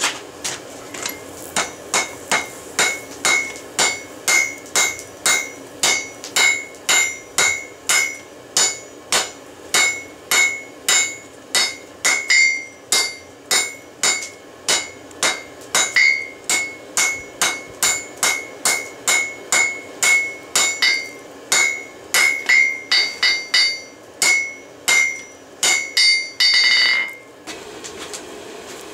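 Hand hammer striking a hot railroad spike on a Peddinghaus steel anvil, a steady run of blows about two a second, each with a bright metallic ring from the anvil. Near the end the ringing runs on longer for a moment.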